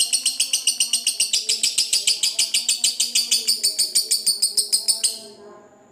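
Lovebird's long 'ngekek' chatter: a fast, even run of sharp, high-pitched notes, about eight a second, that stops abruptly about five seconds in.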